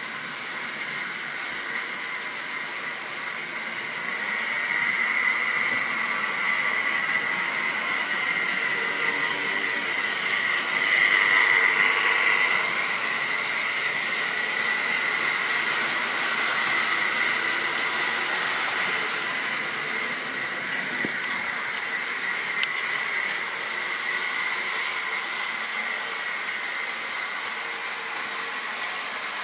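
A model railway train running on the track: the locomotive's electric motor whines steadily while the wheels roll over the rails. It grows louder from about four seconds in and is loudest around twelve seconds, as a rake of tank wagons passes close by, then eases off.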